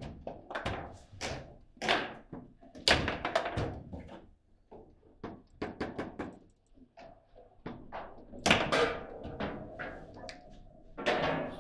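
Table football rally: irregular sharp knocks and clacks as the ball is struck by the figures and bounces off the table walls, with the rods knocking as they are slammed. The hardest hits come about two, three, eight and a half and eleven seconds in.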